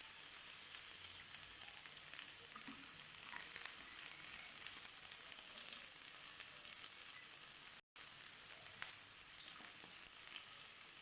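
Diced white onion sizzling steadily in hot cooking oil in a frying pan, a continuous high hiss, with a brief dropout about eight seconds in.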